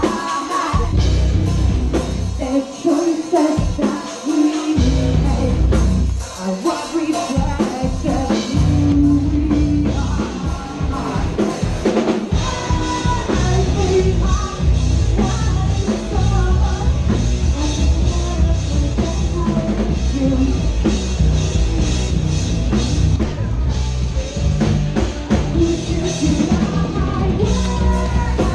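Live rock band playing loud in a small club: drums, electric guitar and a singer. The first few seconds are stop-start, the low end cutting out in short gaps, before the band settles into a steady full-band passage.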